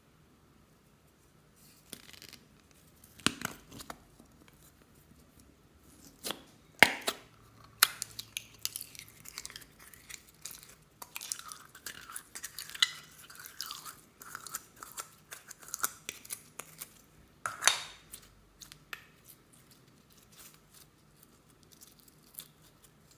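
Several sharp plastic clicks as a plastic egg container of clear yellow slime is pried open, followed by a dense run of wet crackling and squishing as the slime is squeezed and pulled out by hand. The crackling thins out toward the end.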